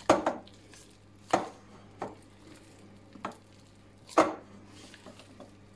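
Hands folding and pressing pastry dough in a glass mixing bowl, giving about five dull thumps at uneven intervals, the loudest near the start and about four seconds in.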